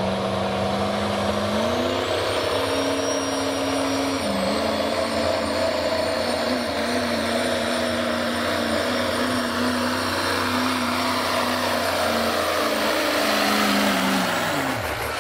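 Turbocharged diesel pickup truck pulling a sled at full throttle: the engine note climbs about two seconds in and holds high with a high turbo whine above it. The engine winds down steeply near the end as the throttle comes off.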